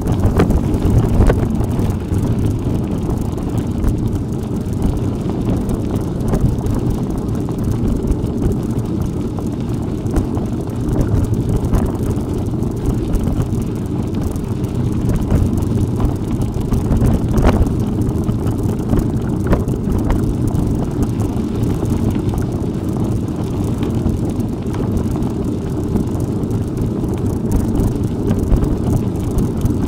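Wind buffeting the microphone during an off-road bicycle ride, a steady low rumble, with a few sharp knocks scattered through it.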